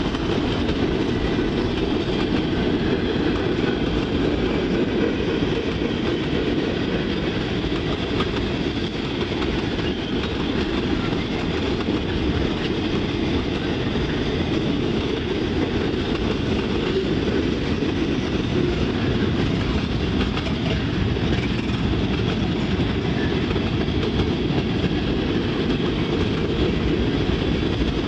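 Freight cars of a mixed freight train, covered hoppers and boxcars, rolling past: a steady, unbroken noise of steel wheels on the rails, heaviest in the low end.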